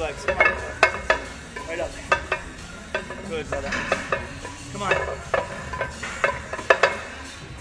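Gym weight-machine noise: irregular sharp clicks and clanks of metal over background noise, with a few brief pitched sounds in between.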